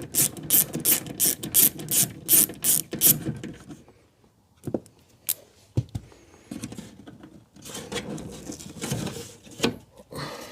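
Ratchet wrench turning a 10mm speaker bolt in a car door, clicking at about three a second, which stops about three seconds in. Scattered knocks and handling noise follow.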